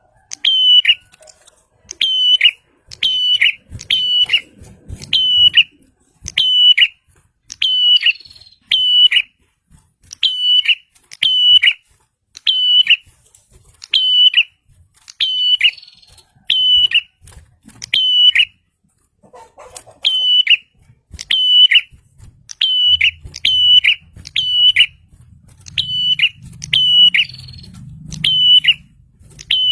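Prinia (prenjak) calling vigorously: short, sharp, high notes that each bend down in pitch, repeated about once a second and often in quick pairs.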